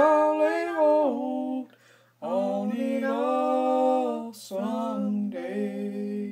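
A woman singing a gospel song unaccompanied, holding long notes in three phrases, with a quick breath about four seconds in.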